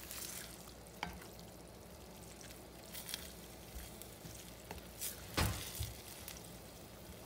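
Wooden spatula stirring thick egusi (ground melon seed) stew in a stainless steel pan, with scattered scrapes and knocks against the pan over a steady low sizzle. The loudest scrape comes a little over five seconds in.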